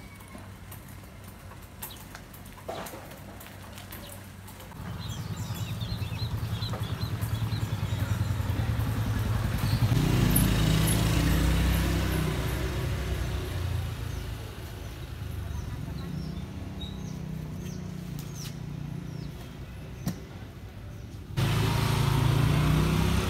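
A motor vehicle engine running close by, growing louder over several seconds and then fading, with birds chirping. Near the end a louder steady low hum starts abruptly.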